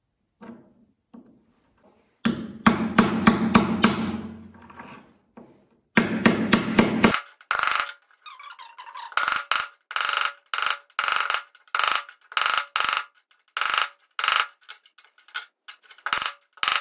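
Claw hammer striking a wooden pad block, driving a tight-fitting steel tube into the hole of a plywood block so that the two blocks of a doweling jig close up. Two dense spells of rapid wooden knocks come first, then from about nine seconds in a steady run of blows about two a second, each with a short ring.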